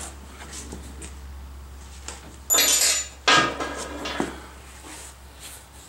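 Handling noises: a few light clicks and two short bursts of noise about two and a half and three and a quarter seconds in, over a steady low hum.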